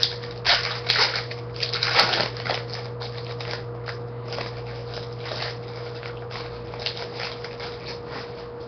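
Foil wrapper of a football card pack crinkling as it is torn open, loudest over the first two seconds or so, then the softer rustle of the cards being handled. A steady low hum runs underneath.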